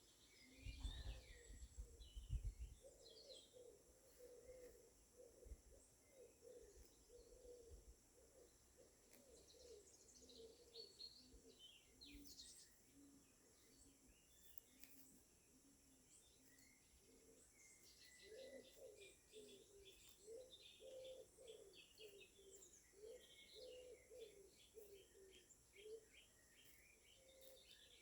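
Faint outdoor birdsong: a dove's repeated low cooing in two long runs, with small birds chirping high above it. A brief low rumble about a second in is the loudest moment.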